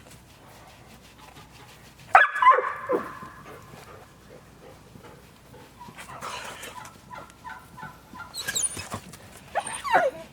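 A dog giving a few short yelping, whining cries that fall in pitch: a loud one about two seconds in and a quick cluster near the end.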